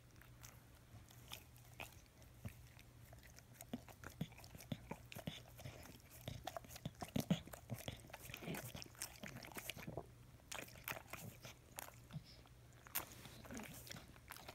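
English bulldog, asleep, licking and chewing a piece of cooked apple on its tongue: faint wet mouth clicks and lip smacks, busiest around the middle, loudest about halfway through.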